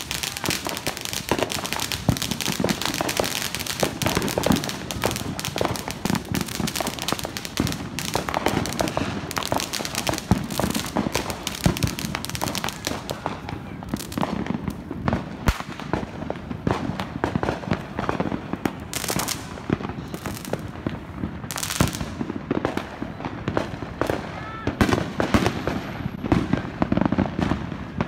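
Consumer fireworks going off in a street: a dense, continuous crackle of firecrackers and spark fountains with many sharp bangs. After about halfway the crackling thins out to separate bangs.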